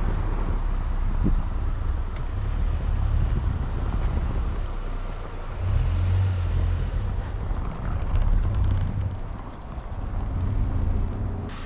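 2010 Ford Ranger pickup with its 2.3 L four-cylinder engine driving along: a steady low engine and road rumble that swells about six seconds in and again near eight seconds.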